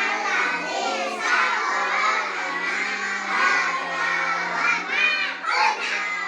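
A group of young children's voices all at once, singing and shouting together over one another.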